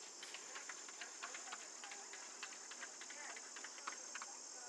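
Faint, steady high-pitched insect chirring, like crickets, with scattered soft ticks.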